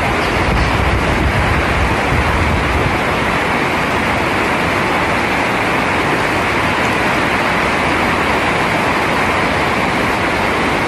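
Heavy rain falling, a loud, steady, dense hiss, with a little extra low rumble in the first few seconds.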